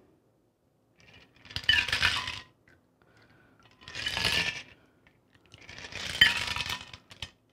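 Cocktail being double-strained: liquid poured from a stainless shaker tin through a fine-mesh strainer into coupe glasses, in three separate pours with metallic clinks.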